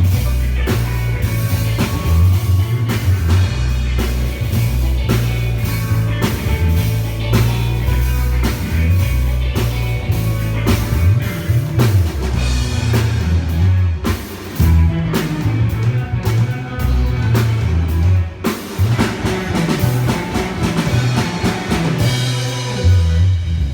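A rock band playing live: drum kit, guitar and a heavy bass line.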